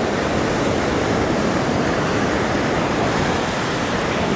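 Ocean surf breaking and washing up the sand, a steady rush of water.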